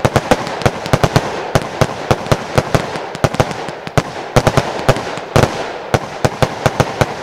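Lonestar Brokat/Blue Category 2 fireworks battery firing shot after shot: a quick, uneven run of sharp reports, about four to five a second, over a steady crackling hiss from the gold brocade bursts. The reports stop near the end.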